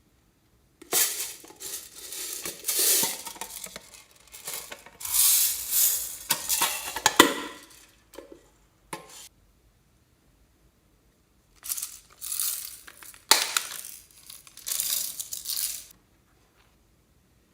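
Slime being squished and stretched by hand, crackling and popping, in two spells with a pause of a few seconds between.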